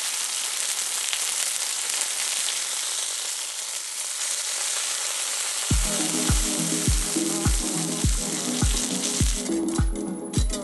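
Food sizzling and crackling in a hot frying pan. A music track with a steady beat of about two thumps a second comes in around six seconds in and takes over near the end as the sizzle fades.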